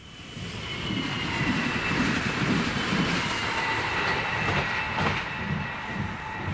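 A train passing close by: rumble and wheel noise swell up over the first second, under a steady high whine that falls slightly in pitch, with a sharp clack about five seconds in.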